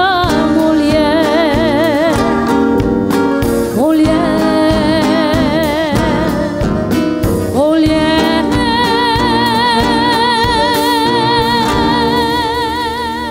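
A woman sings with vibrato over a live band of drums, accordion and guitars. From about two-thirds of the way through she holds one long note with steady vibrato.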